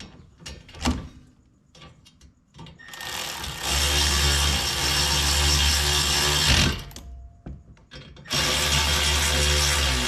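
A power tool runs twice in steady bursts of about four and three seconds, driving the rear brake caliper's hex bolts tight. A few light knocks come before the first burst.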